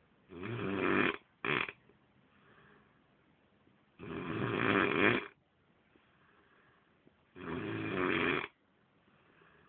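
A sleeping man snoring heavily: three long, rattling snores about three and a half seconds apart, the first followed at once by a short extra snort, with only faint breath noise between them.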